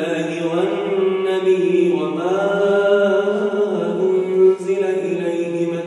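A man reciting the Quran in a slow melodic chant, holding long notes and ornamenting them with gliding turns.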